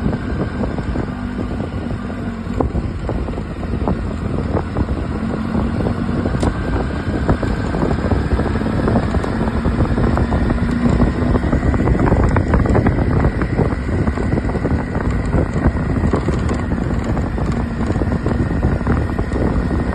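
Adventure motorcycle riding slowly over a gravel track: the engine runs steadily under wind noise on the microphone, with many small knocks and rattles from the tyres on loose stones.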